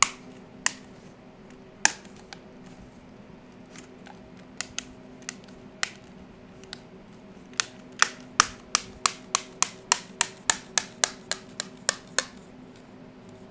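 Plastic diffuser lens being pressed into an aluminium LED channel, snapping in with sharp clicks. A few scattered clicks come first, then a quick even run of about three or four clicks a second as the hands work along the strip.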